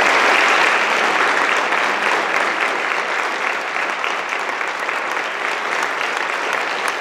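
Audience applauding in many dense claps, loudest at the start and easing off slightly.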